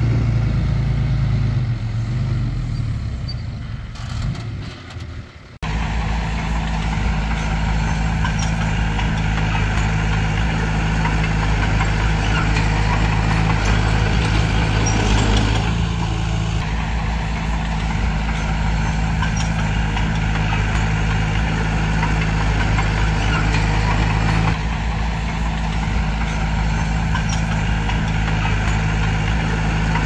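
Engine of a heavy earthmoving machine running steadily under work. The sound drops off, then cuts back in abruptly at full level about five and a half seconds in.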